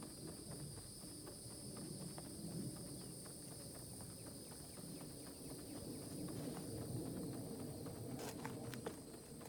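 Faint, rhythmic scuffing and tapping of a person doing flutter kicks on the ground, over a steady high-pitched hiss.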